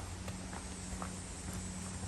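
Footsteps of a hiker walking on a woodland trail: irregular soft clicks and crunches, over a steady low hum.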